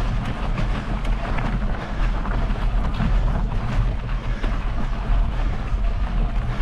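Wind buffeting the microphone over a bicycle rolling along a stony dirt track: a steady low rumble with many small clicks and rattles from the tyres on gravel.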